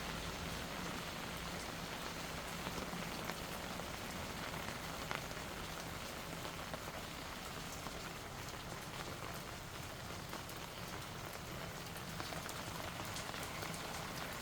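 Steady rain falling, an even hiss with many scattered sharp ticks of single drops striking.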